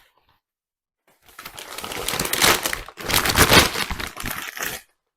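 Packaging being crumpled and pulled open by hand while a vacuum's floor nozzle is unwrapped: a dense crinkling rustle that starts about a second in and stops near the end.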